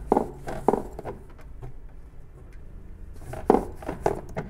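Microfiber dusting glove wiping along window-blind slats: soft rubbing, with a few short knocks as the slats are pressed and shift.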